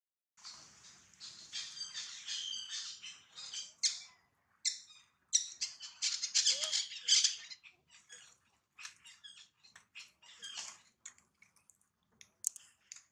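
Repeated high-pitched squawking animal calls in quick bursts, loudest around the middle, with scattered short clicks.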